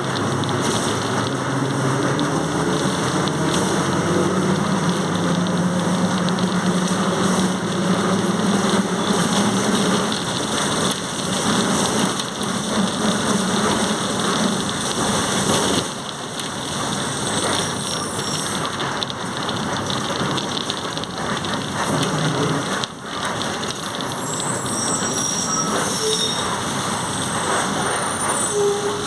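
Volkswagen 17.230 OD bus under way, its transmission growling loudly. A whine rises in pitch over the first ten seconds or so, then comes back more briefly, over a steady running and road noise.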